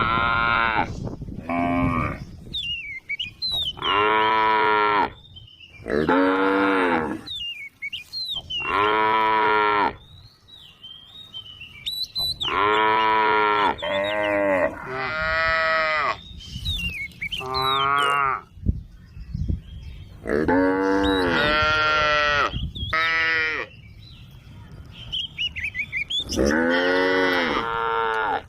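Cows mooing over and over, about a dozen separate moos of a second or so each, some coming in quick pairs. Birds chirp faintly in the gaps between the moos.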